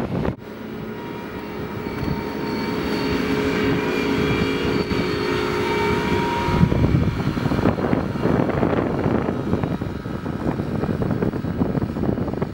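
Caterpillar wheel loader's diesel engine running as the machine drives, with a steady whine over the engine noise. The sound breaks off abruptly just after the start, and from about seven seconds in it turns into a rougher, louder rumble.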